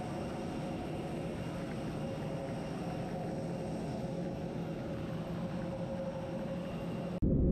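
Steady whine and rush of jet airliners on an airport apron, with a constant high tone. Just before the end it cuts to the louder, deeper rumble of cabin noise inside a jet on the runway.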